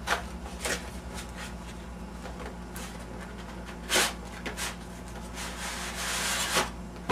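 Cardboard box handled and knocked, then a drawn-out scraping rub near the end as the inner box of the keyboard packaging slides out of its printed cardboard sleeve.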